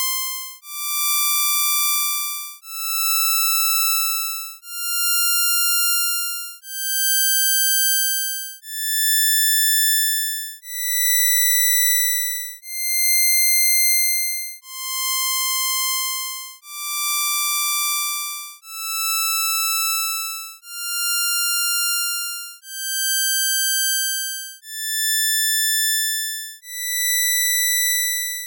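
Synthesised impulse train made with Csound's buzz opcode: a run of buzzy notes about two seconds apart, each swelling and fading, stepping up in pitch from about 1 kHz. About halfway through the run starts over, now passed through a one-tap FIR low-pass filter.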